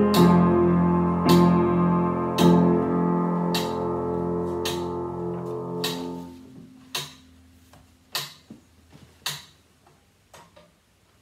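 Piano playing a slow run of chords about a second apart, the last one ringing and fading out about six seconds in. Then a few light knocks and taps from sheet music being handled at the piano's music desk.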